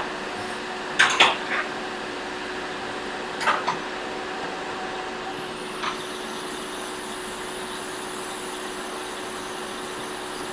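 Hot air rework station blowing a steady hiss of hot air onto the board to reflow the solder under the new charging port. A few short clicks come in the first six seconds, and a faint high whine joins about halfway through.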